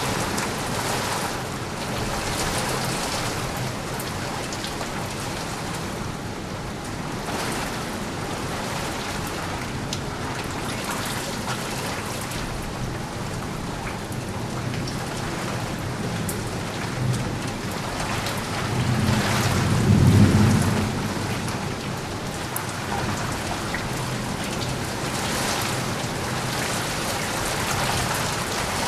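Steady heavy rain falling, with a roll of thunder building about two-thirds of the way through and rumbling loudest for a couple of seconds before fading.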